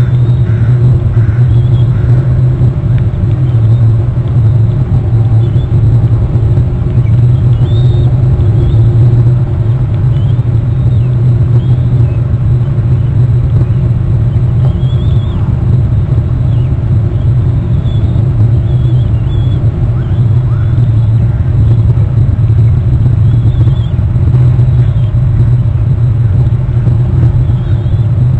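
Steady, loud low rumble from the outdoor nest camera's microphone, with a few faint short high chirps now and then.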